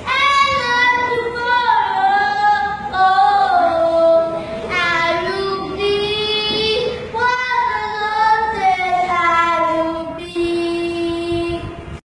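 A young boy singing solo and unaccompanied, in phrases that mostly fall in pitch, ending on a long held note near the end.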